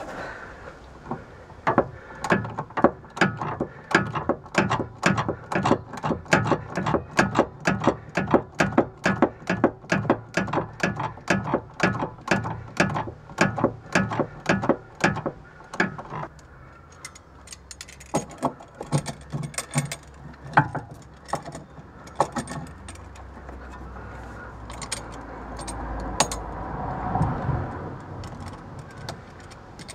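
Ratchet wrench clicking in quick, even strokes, about three a second, as it works the heavily rusted lower nut of a BMW E46 front sway bar end link. Past the halfway point the clicks turn slower and scattered, with a few metal knocks.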